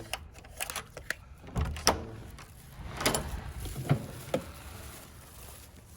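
A door being opened and shut: a run of sharp clicks followed by several heavier knocks and thumps.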